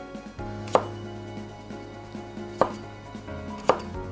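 Kitchen knife chopping a potato on a wooden cutting board: three separate knocks as the blade cuts through and strikes the board, a second or two apart.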